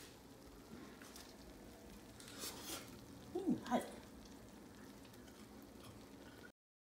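Faint, steady sizzling from a baking pan of freshly baked chicken wings. A little past halfway comes a short voice-like cry that falls then rises in pitch, the loudest sound here. The sound stops abruptly near the end.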